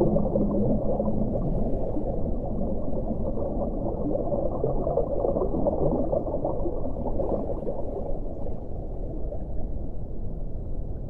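Muffled underwater rushing and bubbling, all of it low in pitch. A low, drawn-out tone fades out about a second in.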